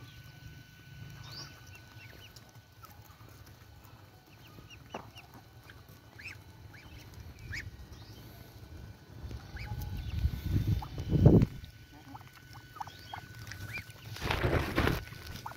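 Muscovy ducks and ducklings feeding on the ground, giving short, high peeps and chirps scattered throughout. Two louder noisy bursts stand out, one about ten seconds in and a shorter one near the end.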